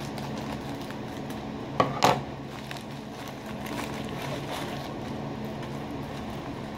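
Scissors cutting open a padded paper mailer, with two sharp snips close together about two seconds in. After them comes a faint rustle and crinkle of paper and plastic packaging being handled.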